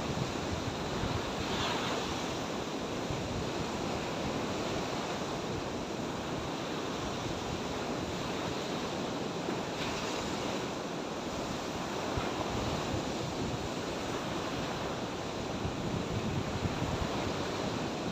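Sea surf washing on the shore, with wind buffeting the microphone; a couple of brief louder rushes come about two seconds in and about ten seconds in.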